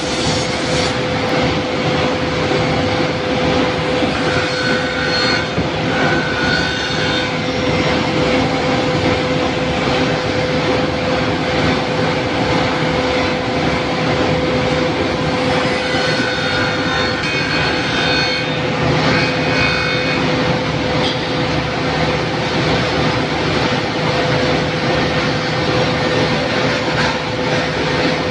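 ECT-86A automatic double-end cutting and milling machine with tank-track feed running under a steady hum with a constant mid-pitched tone, as panels pass through its saw and milling heads. Higher whines come and go a few seconds in and again after about fifteen seconds.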